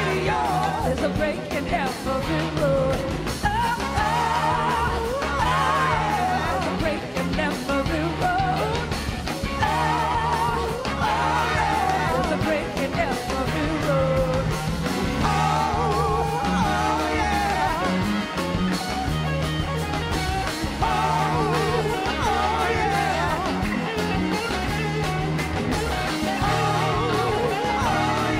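Live blues-rock band playing: electric guitar, drums and a horn section, with a woman singing over them.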